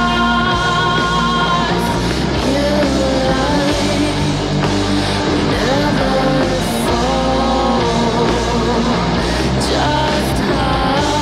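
Heavy, noisy indie rock song with a woman singing long held notes with vibrato over full band accompaniment.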